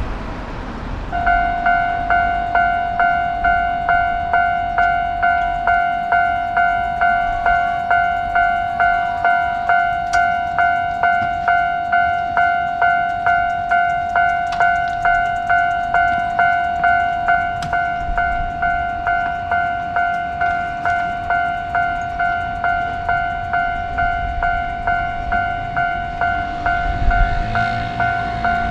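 Japanese level-crossing alarm bell starting about a second in and ringing steadily at a little under two strokes a second, warning of an approaching train. A low rumble comes in near the end.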